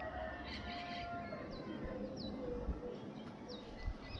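A flock of birds, which the uploader takes for hawks, calling: short, high calls that slide downward, repeated every second or so, over a few lower held whistle notes in the first second.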